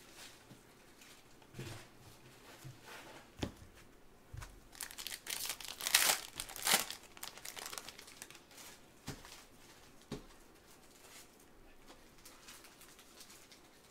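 Foil wrapper of a trading card pack being torn open and crinkled, loudest about five to seven seconds in, with a few short knocks from the cards being handled before and after.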